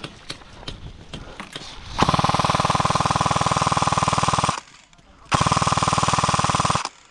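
Airsoft M249 electric gun (S&T M249 AEG) firing two long full-auto bursts with a brief pause between them. The first burst lasts about two and a half seconds and the second about one and a half. A few light clicks come before the first burst.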